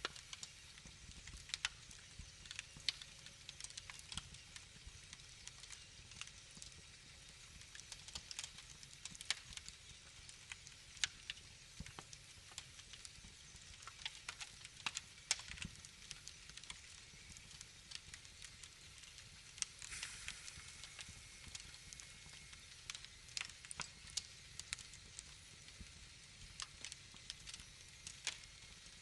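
Wood fire in a fireplace crackling, with irregular sharp pops and snaps over a soft steady hiss.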